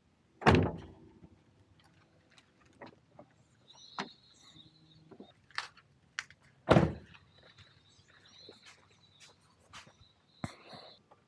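Vehicle doors being shut: two heavy thuds about six seconds apart, with scattered light knocks and clicks between them.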